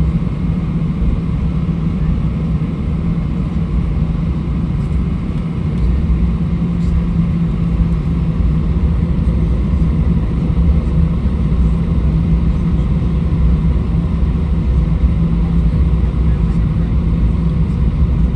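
Airbus A320 cabin noise while taxiing: the jet engines at low taxi thrust give a steady low hum over a rumble, growing a little louder about six seconds in.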